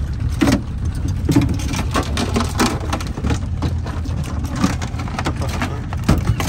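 Small boat under way: a steady motor drone with water splashing and spattering against the hull.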